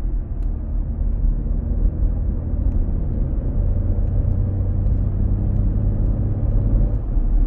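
Porsche Cayenne 958.2 V6 heard from the cabin while driving: a steady rumble with a low drone that grows stronger about halfway through. It is a new noise that comes on after lifting off the throttle, which the owner puts down to a differential, the driveshaft support bearing or the high-pressure fuel pump.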